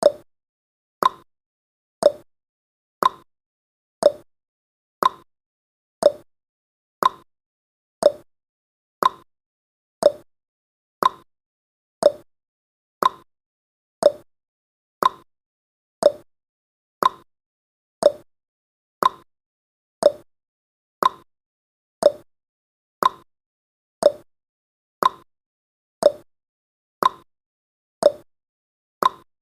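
Clock-style ticking sound effect, one short tick each second, marking off the seconds of a countdown timer.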